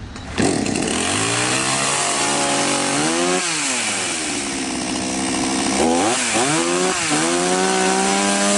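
Chinese Kalibr 4518 two-stroke petrol chainsaw catching on a pull of the starter cord about half a second in and running on its newly replaced carburetor. It idles, is revved up and back down about three seconds in, blipped twice around six seconds in, then held at higher revs near the end, running normally.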